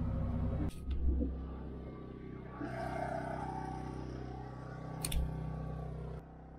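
Steady low hum of a small portable generator running, with a sharp click about five seconds in. The sound changes abruptly about a second in and again near the end.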